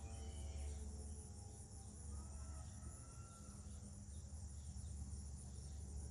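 Insects chirping in a fast, even pulse, over faint tones from a distant Federal Signal 2001-130 tornado siren: the siren fades out about a second in and comes back faintly for about a second around two seconds in.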